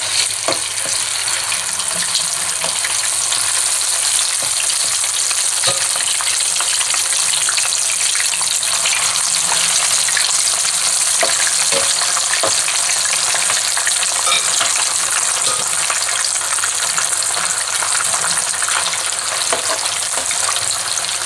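Prawns, squid and fish pieces in an egg and cornflour coating deep-frying in hot oil in a pot, making a steady, loud sizzle. A few sharp clicks of metal tongs against the pot come through the sizzle as the pieces are turned.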